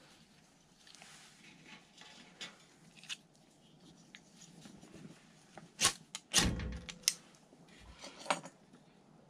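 A few sharp clicks and knocks of objects being handled, bunched in the second half, the loudest a heavier thump about six and a half seconds in.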